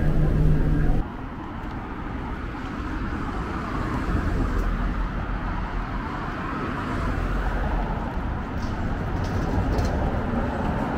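Street traffic on a city road: cars passing with a steady rush of tyres and engines that swells as vehicles go by. A louder engine hum at the start cuts off suddenly about a second in.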